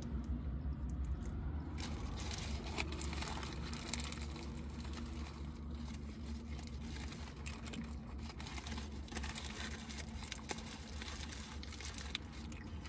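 Paper burger wrapper crinkling and rustling in the hands, with many small crackles and clicks of biting and chewing a burger, over a low steady hum.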